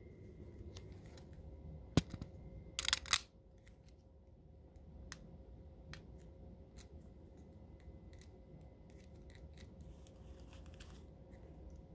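Hands handling a vape cartridge and its cardboard and plastic packaging: a sharp click about two seconds in, a short rustle about a second later, then scattered faint clicks.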